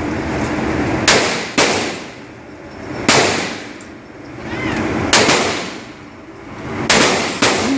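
Gunshots at a shooting range: about eight single shots at irregular spacing, some in quick pairs, each with a short ring-out.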